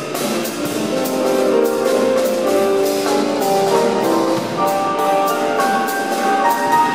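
Jazz piano trio playing: grand piano lines with double bass, over steady cymbal strokes on the drum kit.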